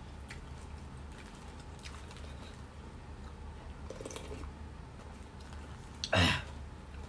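Mukbang eating sounds: sipping tom yum soup from a spoon, with faint chewing and small spoon clicks over a steady low hum. About six seconds in there is one short, loud sound that falls in pitch.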